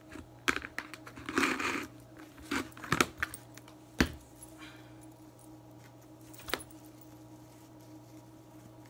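Household items being handled and set down while cleaning a cabinet: scattered knocks, and a brief crinkly rustle about a second and a half in, over a faint steady hum.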